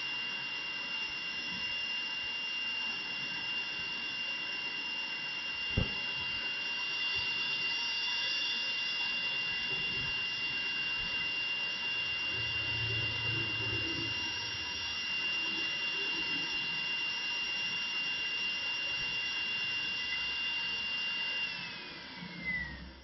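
High-speed CNC router spindle whining steadily at a high pitch as its small cutter engraves an acrylic bangle turning on a rotary axis, with the hiss of cutting under it. There is a single knock about six seconds in, and near the end the whine slides down in pitch.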